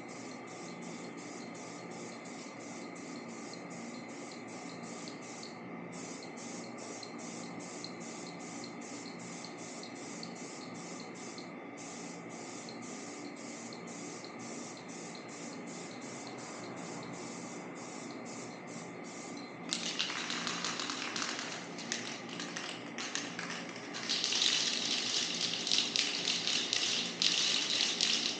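Aerosol spray paint hissing from a spray can as a coat goes on. It starts in short bursts about two-thirds of the way in, then runs longer and louder near the end. Before it comes a steady rhythmic ticking, about three or four a second, with two brief breaks.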